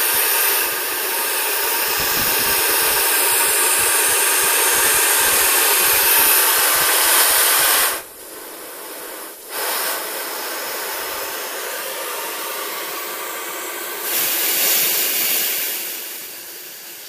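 High-pressure air hissing out as the Yong Heng compressor's filter housings are bled down after shutdown, with irregular crackles early on. The hiss cuts off about eight seconds in, comes back weaker, surges again a few seconds before the end and then tapers off.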